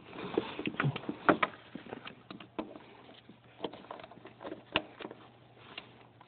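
Irregular clicks, taps and rustles of a handheld phone being handled and fumbled close to the microphone, with a faint steady hum underneath.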